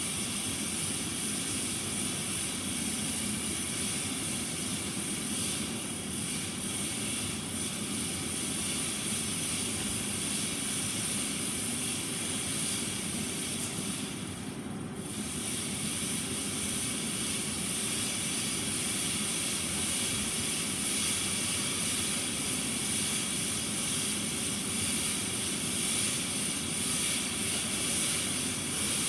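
Steady mechanical hum with a high hiss, unchanging throughout, briefly dipping in its high part about halfway through.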